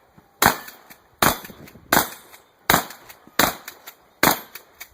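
Winchester 1300 pump-action shotgun fired six times in rapid succession, about three-quarters of a second apart, with fainter clicks between the shots as the action is pumped.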